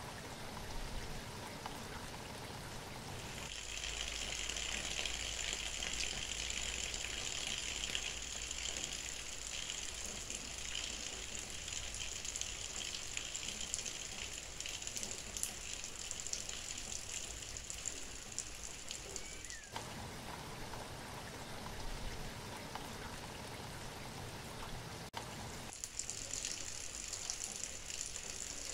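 Steady rain falling. Its character changes abruptly about three seconds in, again near twenty seconds and once more near twenty-six seconds, with a high hiss coming and going.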